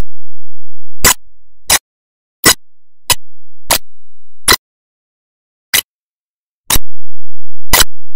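A series of sharp, isolated clicks, about nine at uneven spacing of roughly one every second or less, with dead silence between them.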